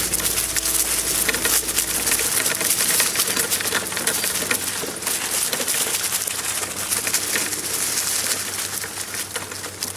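Sacco dog cart being pulled at a trot over a trail of dry fallen leaves: a steady, dense crackling and rustling of leaves under the wheels and paws.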